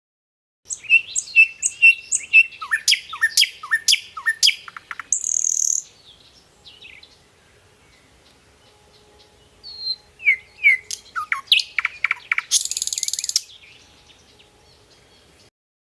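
A songbird singing two song bouts. Each bout is a run of quick clicking notes and short down-slurred whistles and ends in a harsh, buzzy trill. The first starts just under a second in, the second about ten seconds in.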